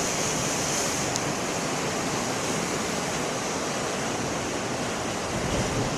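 Heavy ocean surf washing and breaking, heard as a steady, even rushing noise.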